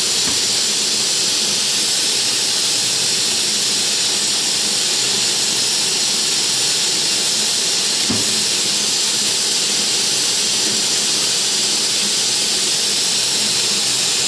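Automatic compressed-air spray gun of a slider painting machine spraying during its timed spray cycle: a loud, steady hiss of air and atomised paint. There is a single soft knock about eight seconds in.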